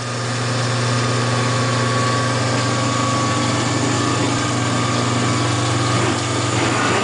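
A one-horsepower electric motor turning a General Motors power steering pump runs with a steady hum. It pumps hydraulic fluid to drive the centrifuge of a home-built biodiesel processor.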